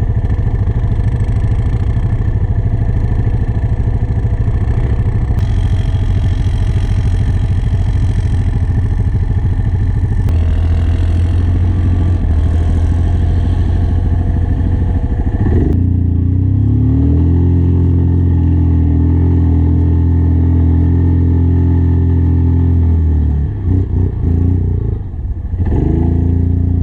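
Yamaha Kodiak ATV engine running hard through deep snow, a loud steady drone. About 16 s in it settles into a strong, even note held for several seconds, then falls away briefly near the end and picks up again.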